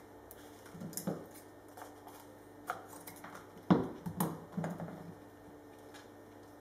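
Scissors snipping carbon fiber and being picked up and set down on a metal worktable: a handful of short clicks and knocks, the loudest about halfway through.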